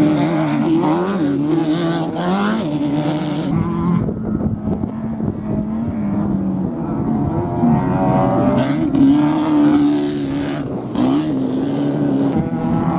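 Desert off-road race vehicle engines running hard on course, the pitch rising and falling over and over with throttle and gear changes. Harsh hissy bursts come and go over the engine note.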